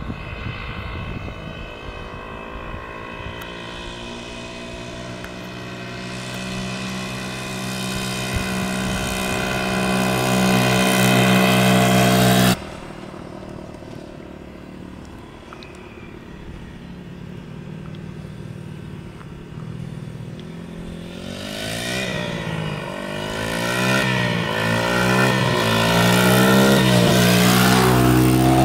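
Dirt bike engine running and growing steadily louder as it comes closer, cut off abruptly about halfway through. The engine then returns with its pitch repeatedly rising and falling as it is revved and shifted, loudest near the end.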